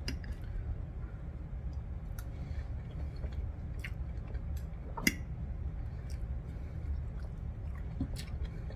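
Close-miked chewing of soft, gravy-soaked poutine. Scattered small clicks come through it, the sharpest about five seconds in.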